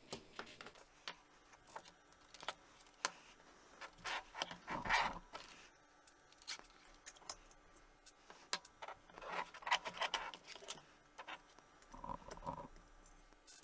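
Faint clicks, small metallic jingles and scrapes of coax connectors and adapters being unscrewed, pulled and refitted by hand, with the cables shifting. There are busier bursts of handling about four seconds in, around ten seconds, and again near the end.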